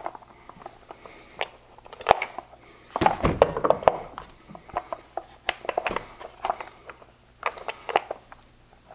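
Small metal clicks and clinks of a hex nut and washers on a bolt being threaded by hand through a lawn-aerator wheel hub, with the wheel being handled and turned on the workbench. A busier stretch of handling noise comes about three seconds in.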